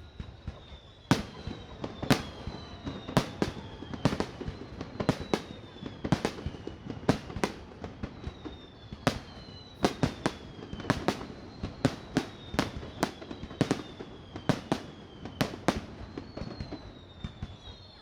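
Fireworks display: a fast, irregular run of sharp shell bursts, about one to two bangs a second. Several whistles sliding down in pitch sound over the bangs.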